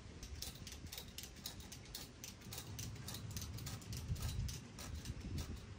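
Ratchet strap being cranked, its pawl giving a rapid series of light clicks, about four a second, as the strap is tightened to pull the pole upright. A low rumble of wind on the microphone lies under it.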